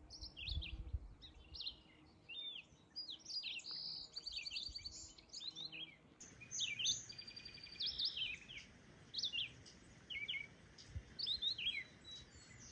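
Songbirds singing and calling: a busy stream of short, high chirps and whistled notes, several overlapping.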